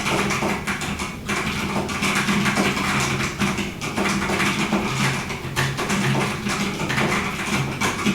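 Fast, continuous typing on a 40% mechanical keyboard with Drop Halo True tactile switches: a dense, even run of key clacks with no pauses.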